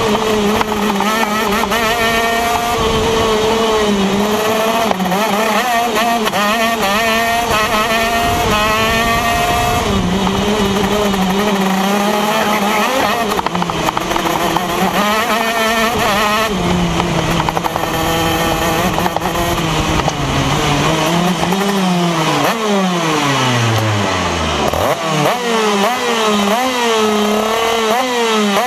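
Onboard sound of a TM KZ10 125cc two-stroke shifter kart engine at racing speed, its revs rising and falling over and over. From about 22 seconds in the revs fall steeply as the kart slows to a stop, then the engine is blipped in quick short rises while the kart stands still.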